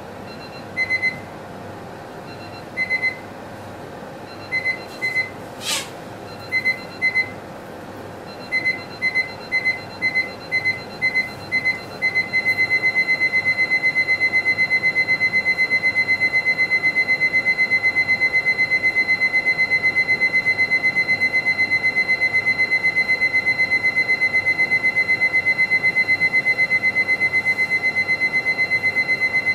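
An electronic alarm beeping on one high tone, first in pairs and short runs, then from about twelve seconds in a fast, unbroken string of beeps. A single sharp click sounds about six seconds in.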